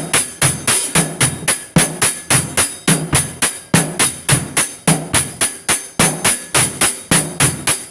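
Percussive music: a steady beat of sharp hits, about four a second.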